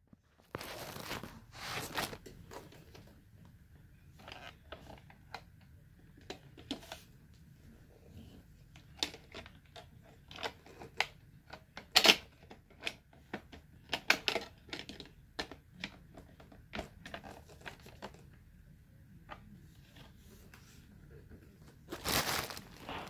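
Plastic parts of a Shark Navigator Lift-Away upright vacuum being handled and fitted together: scattered irregular clicks and knocks with short spells of rustling, one sharp knock standing out about halfway through and a denser rustle near the end.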